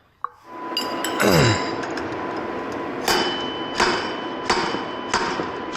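Hammer blows on a bearing puller, driving a worn wheel bearing out of a dirt bike hub. A steady mechanical noise starts about half a second in, and from about halfway through there are four sharp metallic strikes, roughly two thirds of a second apart.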